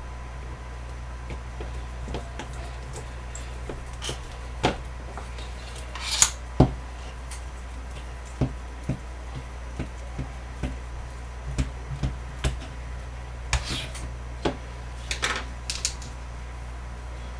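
Irregular small clicks and taps of screws, nuts and a tool being handled while the plates of a quadcopter arm are screwed together, the loudest pair about six seconds in and a quick run of taps near the end, over a steady low hum.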